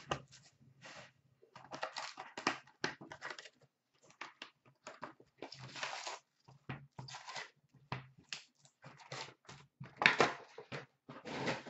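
Plastic shrink wrap torn off a cardboard hockey card hobby box and crumpled, then the box flap opened and the card packs pulled out and stacked: irregular crinkling, rustling and cardboard scraping. The loudest rustle comes about ten seconds in.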